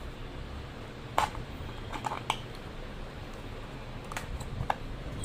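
Handling of a small cardboard product box: a few sharp taps and clicks as fingers work at its end flap, over a steady low hum.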